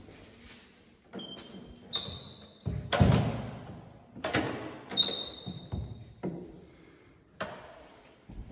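Footsteps thudding on a hard floor, about one a second, echoing off tiled walls, with a few short high squeaks.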